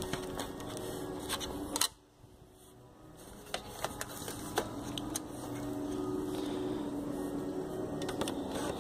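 Scattered small plastic clicks and knocks as a 2-DIN car DVD head unit is handled and fitted into a plastic dash trim frame from behind, with handheld-camera handling noise. One louder click about two seconds in, then about a second of near silence, over a faint steady hum.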